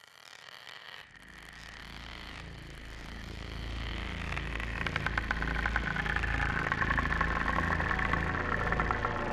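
Film soundtrack swell: a low rumble that grows steadily louder, with hiss at the start and a dense scratching, rapid clicking texture coming in about halfway.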